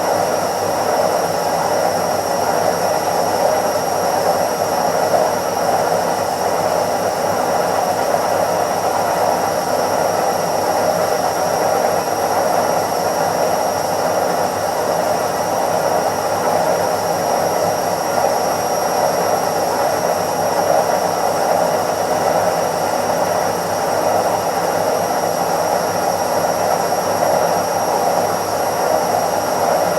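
Indesit IWC71252 front-loading washing machine on its spin cycle: the drum spinning at speed with a steady, even whirring hum and a faint constant high whine above it.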